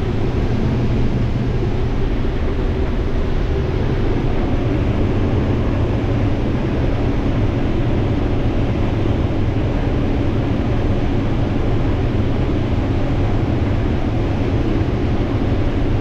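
Combine harvester running steadily while picking corn, an even low engine and threshing drone heard from inside the cab. It is running smoothly, sounding good.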